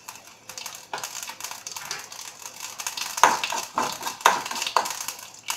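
Mustard seeds and urad dal crackling in hot oil in a kadai as a tempering is fried. A perforated metal ladle stirs and knocks against the pan several times between about three and five seconds in.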